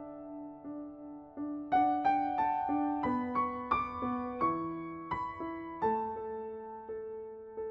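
Background music: a soft piano melody of single notes struck about three a second, climbing higher through the middle and settling back down onto a lower note near the end.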